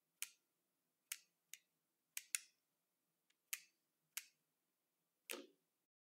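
Sharp wooden clicks and knocks from a BRIO toy sawmill crane as it is worked by hand to lift a stack of wooden planks. There are about eight clicks at uneven intervals, and a longer wooden clatter near the end.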